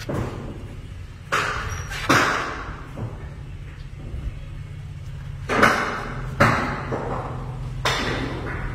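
Toyota Land Cruiser V6 petrol engine running low and steady as the SUV backs slowly out of a steel shipping container, with about five loud thumps and clanks from the container as the vehicle rolls over its floor and sill.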